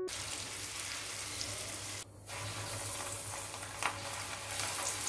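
Hot oil sizzling in a wok pan as food fries, with a short break about two seconds in.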